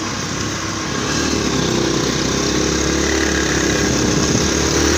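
Motorcycle engine running as the bike rides along, getting louder about a second in as it picks up speed, over a steady rush of wind and road noise.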